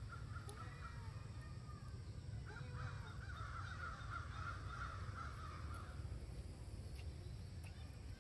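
Animal calls: a rapid chattering run of notes, strongest from about two and a half to six seconds in, over a steady low rumble.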